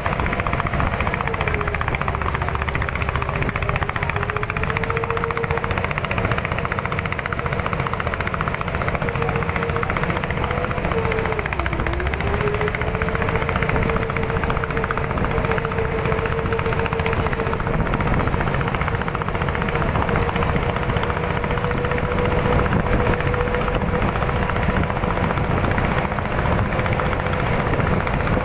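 A small engine running steadily at one speed, its pitch sagging briefly twice, about three seconds in and again near twelve seconds, as if bogging under load before recovering.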